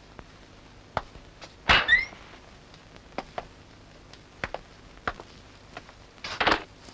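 A door being opened: a thunk with a short squeak about two seconds in, among scattered light knocks and footsteps, then a brief rustling shuffle near the end.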